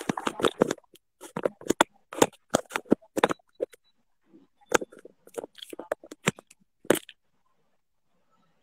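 Irregular sharp knocks, taps and rubbing from hands and a phone being handled close to its microphone. The sounds stop about seven seconds in.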